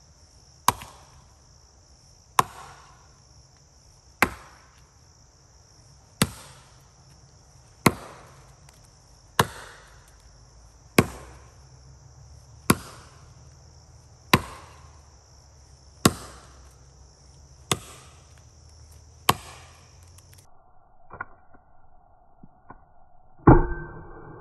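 Council Tool Velvicut axe chopping into the trunk of a hard, dead standing red oak to cut the felling notch: about a dozen sharp strikes, one roughly every second and a half, over a steady chorus of insects. Near the end the insects drop out and one louder strike rings.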